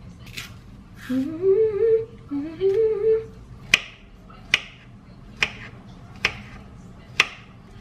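A woman hums two short rising phrases. Then a kitchen knife cuts through a banana onto a chopping board: five sharp taps, a little under a second apart.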